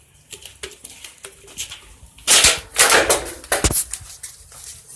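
Scattered light clicks, then a loud rustling, clattering burst lasting about a second and a half, close to the microphone: the sound of something being handled right at the mic.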